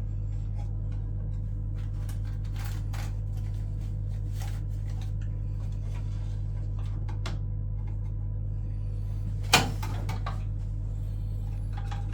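Small clicks and knocks of plastic boiler casing and control-board parts being handled and unclipped, with one sharper knock about nine and a half seconds in, over a steady low hum.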